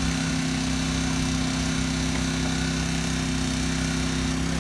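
Small engine of a hydraulic rescue-tool power unit running at a steady speed, a constant drone that feeds the cutter through its hoses.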